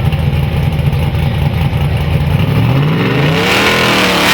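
Drag-racing street car's engine running with a deep, uneven rumble. About two and a half seconds in, it revs up hard as the car accelerates away, its pitch rising and wavering before holding high.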